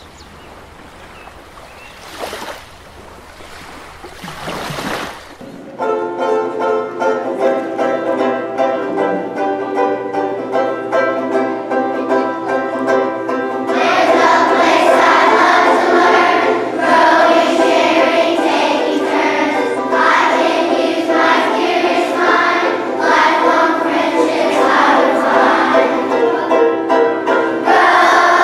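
School song: after a few seconds of quiet room noise, an instrumental introduction starts about five seconds in, and a choir starts singing over it about fourteen seconds in.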